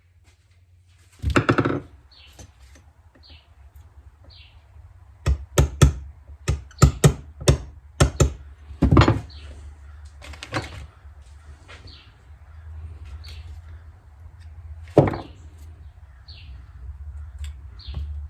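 Small ball-peen hammer tapping out the little pin on a pressure washer's carburetor: a quick run of sharp metal taps in the middle, with a couple of single knocks later, after some handling of tools near the start.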